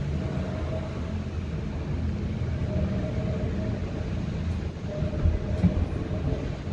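Southern Class 377 Electrostar electric multiple unit passing directly beneath: a steady rumble of wheels on rails with a faint steady hum over it, and a few knocks about five seconds in.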